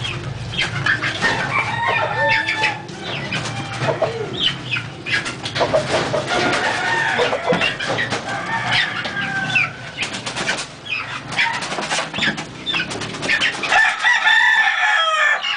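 Backyard gamecocks and chickens clucking and calling, short overlapping calls with clicks and knocks mixed in. A louder burst of calling comes near the end. A low steady hum runs underneath.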